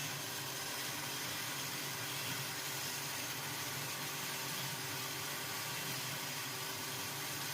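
Steady background hiss with a faint hum, unchanging throughout; no distinct sound event.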